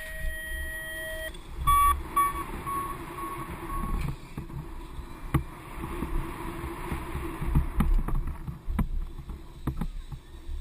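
BMX bike ridden fast on a dirt track, heard from a helmet camera: wind buffeting the microphone and tyres rumbling on packed dirt, with scattered knocks as the bike hits bumps. A steady electronic beep holds for about the first second, like a BMX start gate's final tone.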